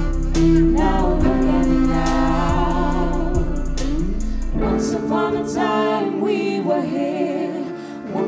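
Live band and singers performing a song, with several voices singing together over sustained chords and bass. About halfway through, the bass and held chords cut out, leaving the voices over a lighter backing.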